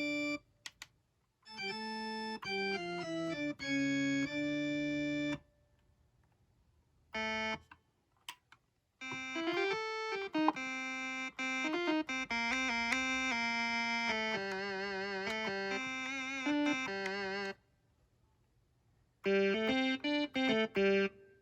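Akai MPK Mini Play MK3 mini keyboard playing its built-in sounds: held chords and short phrases in a sustained keyboard tone, broken by several short pauses. Near the middle the notes waver in pitch with vibrato.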